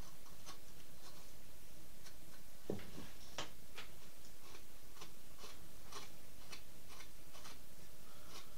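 Carving knife taking short slicing cuts in a pine duck decoy head: a crisp scrape with each stroke, about two a second. One brief low sound about three seconds in.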